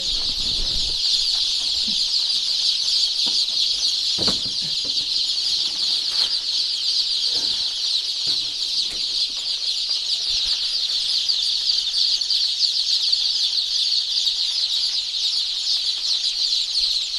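A large flock of young layer chicks peeping all at once in a dense, steady, high-pitched chorus, with a few faint knocks near the start.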